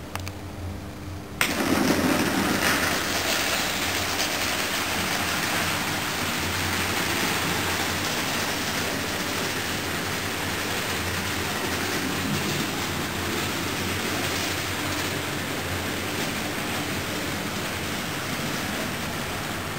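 Model train running on the layout: a steady rushing rumble of wheels and motor with a low hum, starting suddenly about a second and a half in.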